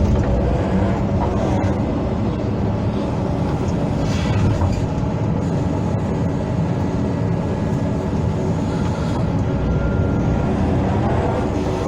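Hydraulic excavator's diesel engine running steadily while the machine works, a continuous low mechanical drone.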